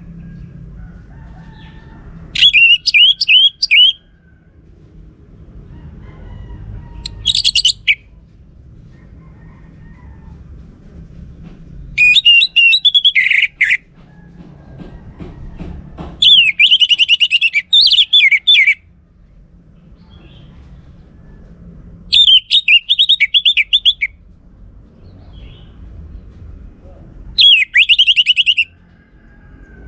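Orange-headed thrush singing: six loud phrases of quick, warbling notes, each a second or two long, about five seconds apart, over a low steady background rumble.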